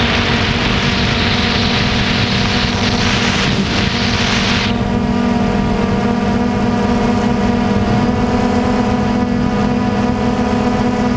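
Quadcopter drone's motors and propellers humming steadily, heard close up from the drone itself. A rushing hiss of wind over the microphone runs alongside for the first few seconds and stops suddenly just under halfway through.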